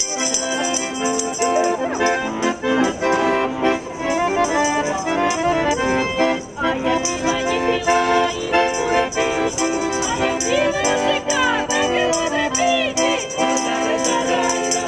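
Folk music from an accordion with tambourines jingling in time. Women's voices join in singing in the second half.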